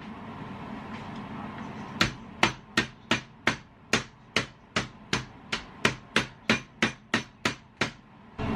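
A pork chop being pounded to tenderize it for tonkatsu: about seventeen quick, even strikes, roughly three a second, starting about two seconds in.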